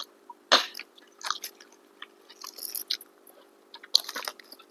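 A person chewing and biting food close to the microphone: irregular short crunches and mouth clicks, the loudest about half a second in and another cluster near four seconds.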